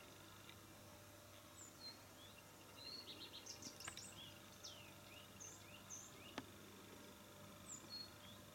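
Faint, scattered chirps and short down-slurred whistled calls of small songbirds, busiest in the middle and later part. Two sharp clicks stand out, the louder one about six seconds in.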